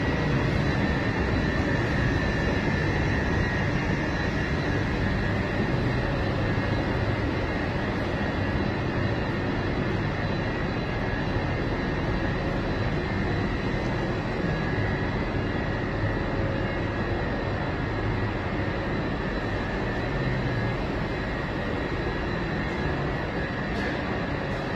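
Steady mechanical drone with a faint high whine running through it, like industrial machinery or ventilation in a large hall.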